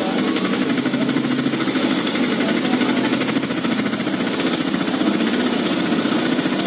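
A small engine idling steadily, with a rapid, even beat.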